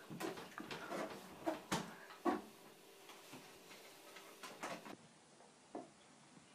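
Cat flap in a door knocking and rattling a few times as a fat cat squeezes through it, the loudest knocks about two seconds in.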